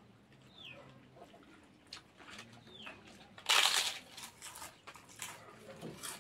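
Crunching bite into a crispy papad (fried wafer): one loud crunch about three and a half seconds in, followed by several shorter crunches of chewing.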